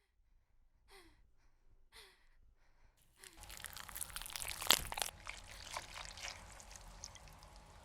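Two short breathy sounds, about a second apart, each falling slightly in pitch. Then, about three seconds in, a steady crackling, rustling noise full of small clicks begins, with one sharp click near the middle.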